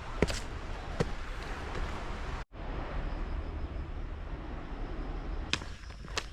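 Footsteps on a hiking trail: sharp taps about a second apart over a steady outdoor hiss. The sound drops out for an instant about two and a half seconds in.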